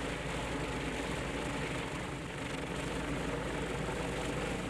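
Radial engine of a vintage WWII-era propeller plane running on the ground with the propeller turning: a steady, fast, even pulsing throb.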